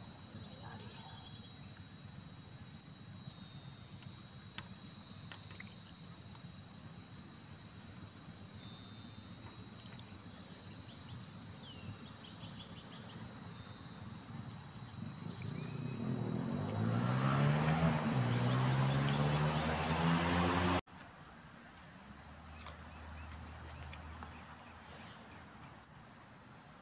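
Insects droning steadily on one high note. From about 16 seconds in, a passing motor vehicle's engine grows louder with its pitch rising, then cuts off suddenly at about 21 seconds.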